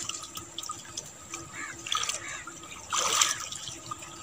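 Water splashing as a long pole is thrust down through chest-deep water into the mud, with one loud splash about three seconds in and lighter sloshing and trickling around it.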